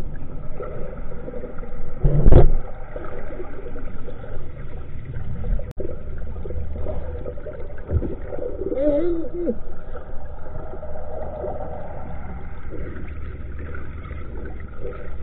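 Low, steady drone of a fishing boat's engine heard muffled through water by an underwater camera, with one loud thump about two seconds in.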